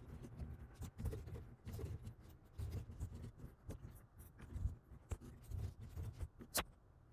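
Computer keyboard typing: a run of irregular key clicks, with one sharper click about six and a half seconds in.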